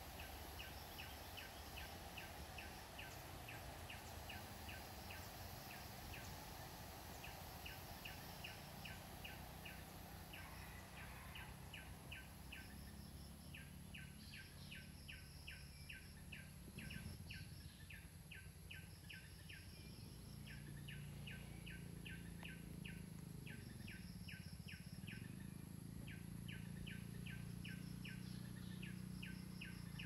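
Tropical forest ambience: high chirps repeating at about four a second in runs of a few seconds, over a faint rush of a small stream cascade that fades out about a third of the way in.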